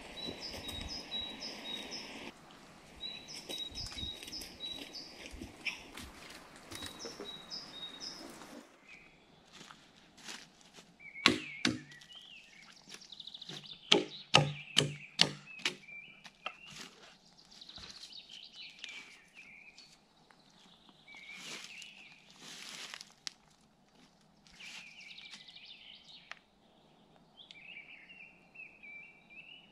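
Birds singing in a forest, with a cluster of sharp wooden knocks and thuds in the middle as a log is shifted on wooden trestles.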